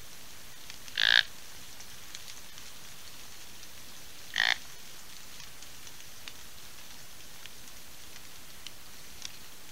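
Two short, loud calls from an animal, about three seconds apart, over steady rain falling in the woods with scattered drip ticks.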